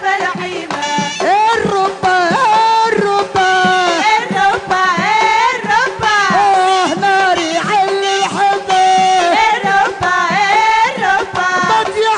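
Tunisian mezoued folk music: a loud, ornamented melody with sliding notes over a steady percussion rhythm.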